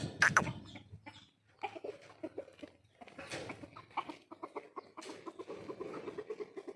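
Farm animals calling, a run of many short, quick calls one after another.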